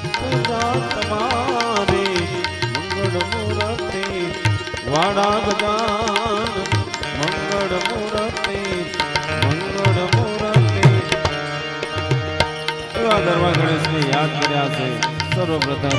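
Instrumental Indian folk-devotional music: two pairs of tabla drums play a rhythm with booming bass strokes, under a melody on an Indian banjo (bulbul tarang) whose notes slide up and down. Small hand cymbals keep time with sharp clinks.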